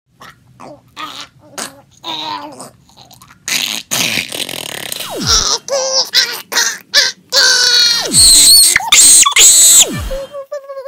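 A boy making silly vocal noises: grunts, squeals and shrieks in short bursts, growing louder toward the end, with a few quick downward swooping tones.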